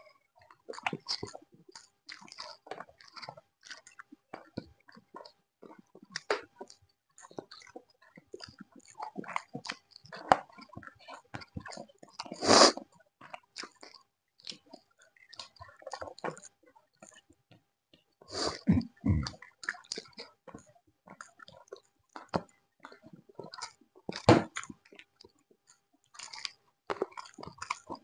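Close-up eating sounds of people chewing chicken curry and lemon rice: a steady scatter of short wet clicks and chewing noises, with a few louder crunches about halfway through and near the end.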